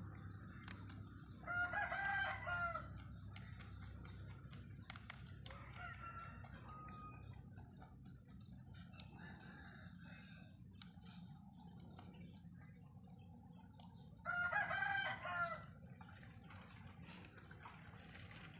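A rooster crowing twice, about twelve seconds apart, each crow a loud call of a bit over a second, with faint scattered clicks in between.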